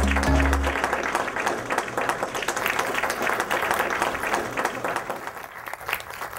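Audience applauding, a dense patter of clapping that dies away near the end. The last notes of title music sound in the first second.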